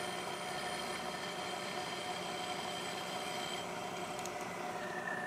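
Milling machine spindle running with an end mill cutting across the face of a small metal casting, a steady machining sound with a high tone that stops about three and a half seconds in.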